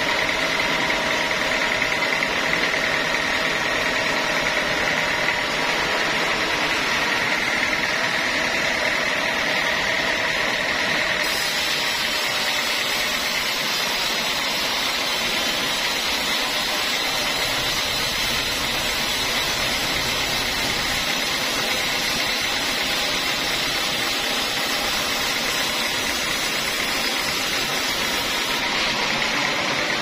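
Band sawmill running steadily as it saws a teak log, with a constant machine drone and a tone near the top. From about eleven seconds in until shortly before the end, the sound turns brighter and hissier.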